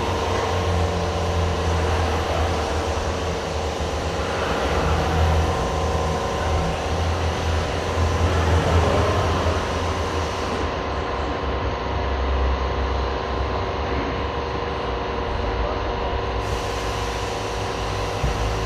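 Steady machine hum of shop ambience: a constant low drone with a few held higher tones over a noisy background, without pause or change.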